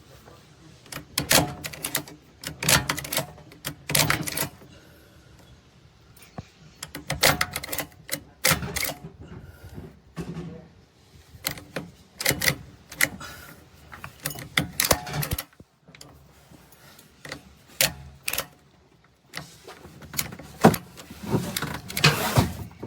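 Ratchet strap being worked by hand: irregular runs of sharp clicks and rattles from the ratchet mechanism, with short pauses between them.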